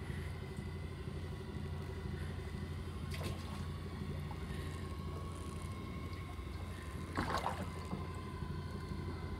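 Small fishing boat's engine running at idle, a steady low hum with a faint steady whine above it. Two brief noises come about three and seven seconds in.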